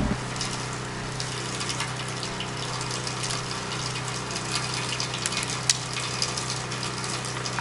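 Pressure washer running steadily with a low hum, with scattered small clicks as the nozzle tip on the wand is swapped for the black low-pressure soap tip.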